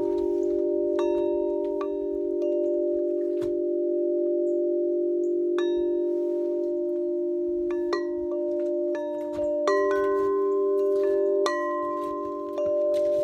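A large four-foot Woodstock Chimes "Chimes of King David" wind chime, tuned to the pentatonic scale, blown by the wind. Its long tubes are struck at uneven intervals about once a second, and the deep notes ring on and overlap, so the notes never clash.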